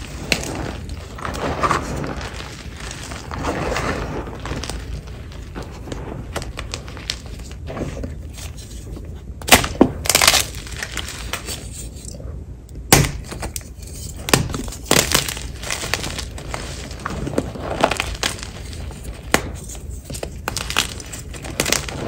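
Blocks of gym chalk crushed by hand in a bowl of chalk powder: soft crunching and crumbling, with several sharp snaps as pieces of a block break, the loudest around the middle.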